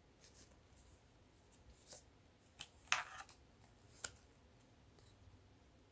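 Faint handling of stiff printed cards: a few light rustles and clicks. The loudest is a short scrape about three seconds in, and a sharp click follows about a second later.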